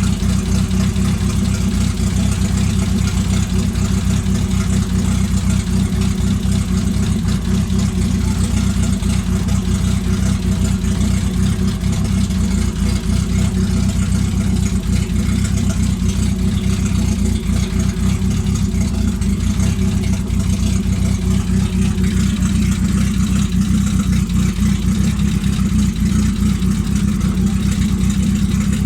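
2-litre 8-valve Opel four-cylinder engine idling steadily.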